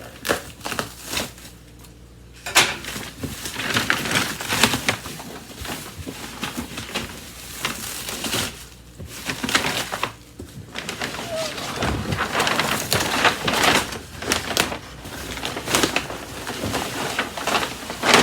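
Cardboard and packing material rustling, crinkling and scraping in irregular handfuls as a boxed cordless vacuum is unpacked.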